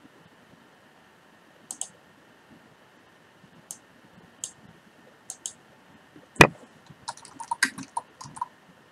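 Computer mouse clicking a few times, some clicks in pairs, then one louder knock about six seconds in, followed by a quick run of keyboard typing near the end.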